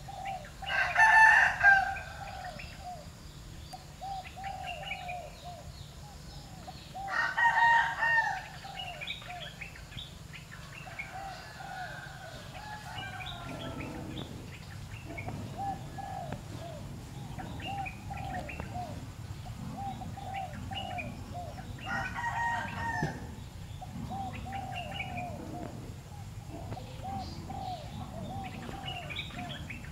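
A rooster crowing three times: once near the start, again about seven seconds in, and again about twenty-two seconds in, each crow about a second and a half long. Small birds chirp steadily throughout.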